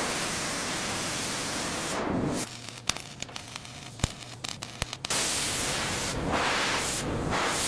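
A steady, even hissing noise that drops away for about two and a half seconds midway, leaving a few scattered sharp clicks, then resumes.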